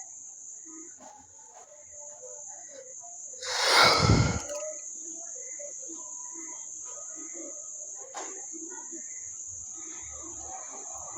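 Steady high-pitched drone of crickets or similar insects. About four seconds in, a loud rustling bump lasts about a second, close to the microphone.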